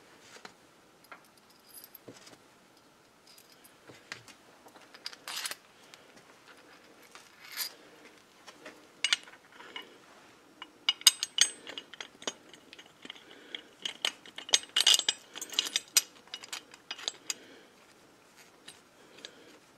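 Steel bolts and washers clinking as they are run into the mounting bracket on a Nissan R200B differential. Scattered clicks in the first half give way to quick runs of clicking from a hand ratchet in the second half as the bolts are run down snug.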